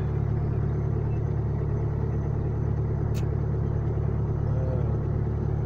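A diesel engine idling steadily with a low, even hum, and a single brief click about three seconds in.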